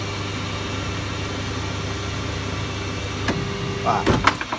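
Boxford lathe running at its top speed of 1300 RPM, a 12 mm end mill in the chuck milling a slot in an aluminium block, with a steady machine hum. About four seconds in comes a cluster of sharp knocks and a short squeal as the end mill snags the work and wrenches it askew.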